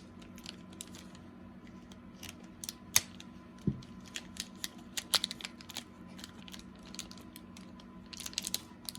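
Scissors cutting open cellophane-wrapped trading card packs: a scattering of sharp snips and crinkles, with a quick run of snips near the end.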